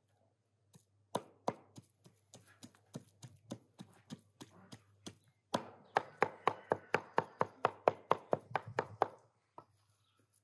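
Blade chopping raw meat on a round wooden chopping block: uneven knocks at first, then a fast steady run of cleaver chops, about four a second, that stops about a second before the end.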